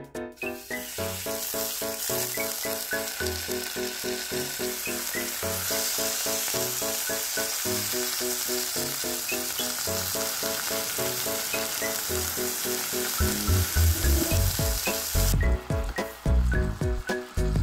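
Beef oyster blade steaks searing in hot oil in a nonstick frying pan, a loud sizzle that starts as the meat goes into the pan and drops off sharply near the end. A light, bouncy background music tune plays under it.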